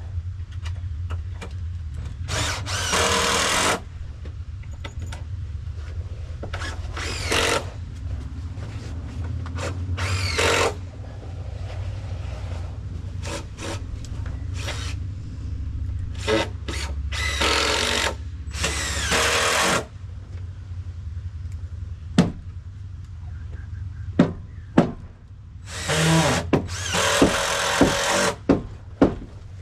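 Power drill/driver driving screws into wooden deck framing in repeated bursts of half a second to two seconds, with several sharp knocks near the end and a low steady hum underneath.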